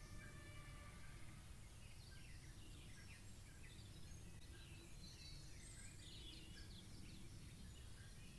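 Faint birds chirping, many short quick calls from about two seconds in, over a low, steady outdoor background rumble.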